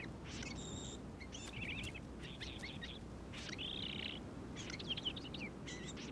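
Small birds chirping and trilling in short phrases that come every second or so, over a steady low rumble.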